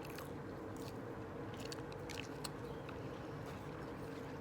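Close-up chewing and biting of a burger, with scattered small wet mouth clicks, over a steady low hum.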